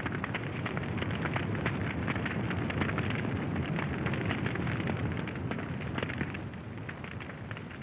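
A large building fire burning, with dense rapid crackling over a low rumble, easing off slightly near the end, heard through an old, dull-sounding optical film soundtrack.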